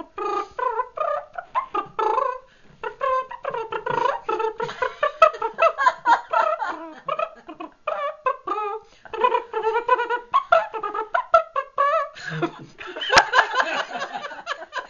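A woman imitating a trumpet with her voice: a fast run of short, pitched, buzzing toots, broken off and restarted many times.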